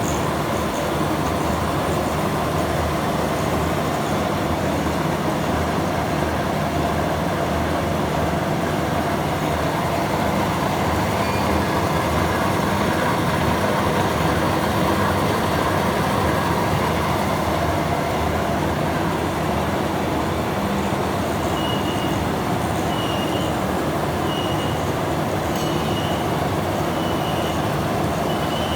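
A vehicle running steadily with a continuous, even rumble. From about three-quarters of the way through, a faint high tone repeats in short pulses.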